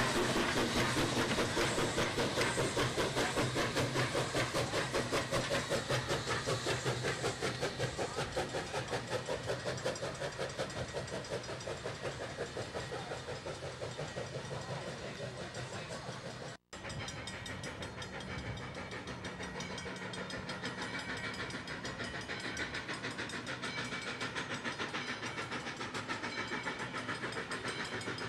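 Steam locomotive #40 chuffing in a fast, even beat as it pulls its passenger train past and away, growing fainter. The sound cuts out for an instant about two-thirds of the way through.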